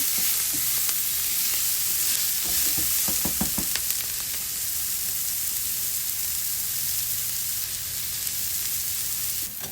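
Chopped onions and garlic sizzling in hot olive oil in a frying pan, stirred around to deglaze the browned bits the pan-fried shrimp left behind. The steady hiss of frying has a few short knocks of the stirring about three seconds in.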